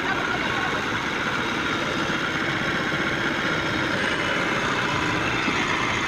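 Massey Ferguson tractor's diesel engine running steadily at low revs, with a trolley of sugarcane hitched behind.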